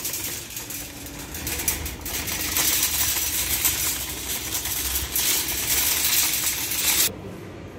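Empty wire-basket shopping cart rattling and clattering as it is pushed across rough asphalt, its wheels rumbling underneath; the sound stops abruptly about seven seconds in.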